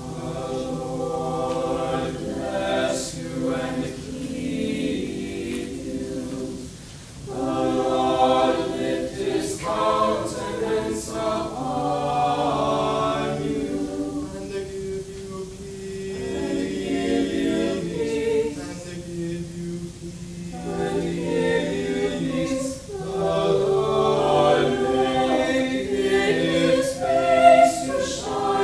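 A small mixed-voice student vocal ensemble singing a cappella in sustained chords, with short breaks between phrases about 7 and 23 seconds in.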